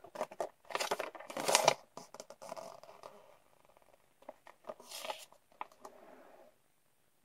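Folded paper instruction leaflet rustling and crackling as it is unfolded and handled, in uneven bursts, loudest about a second and a half in, with another burst around five seconds in.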